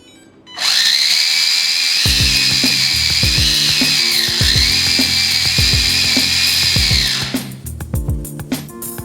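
Small electric motor of an RC truck gearbox running at high speed under throttle, a steady high whine that dips in pitch briefly twice and stops after about seven seconds.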